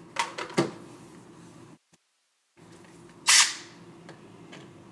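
Two light knocks near the start, then one short burst of a cordless drill/driver spinning about three seconds in.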